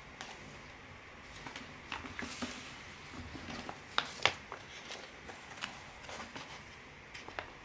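Cross-stitch kit packets and paper charts rustling and tapping as they are handled and laid on a table, with two sharp taps about four seconds in.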